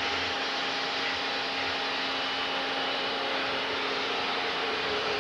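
Steady whooshing machinery noise with a constant hum underneath, from concrete batch plant equipment running.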